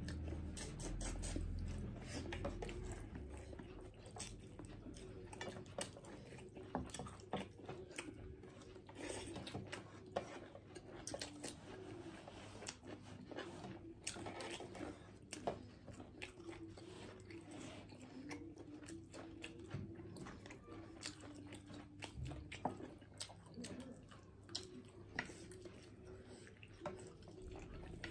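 Close-miked eating sounds of two people chewing mutton curry and rice: wet mouth smacks and small sharp clicks throughout, with a low rumble in the first few seconds.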